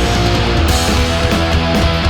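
Punk rock band recording: guitars, bass and drums playing steadily and loudly, with a cymbal crash about two-thirds of a second in.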